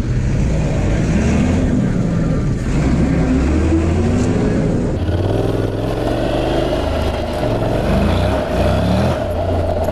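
Vehicle engines: a truck's engine as it drives past, then, after a cut, a motorcycle engine running as the bike rides along, its pitch rising and falling.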